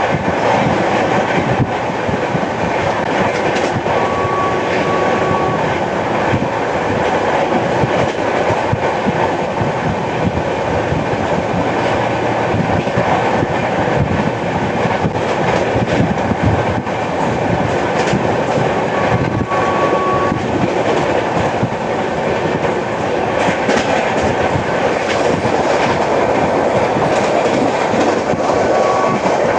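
Express passenger train running at speed, its wheels clattering and knocking steadily over the rails, the knock of a flat wheel (a worn flat spot on a wheel tread) mixed into the clatter. Three brief faint high tones come through, about four seconds in, about twenty seconds in and near the end.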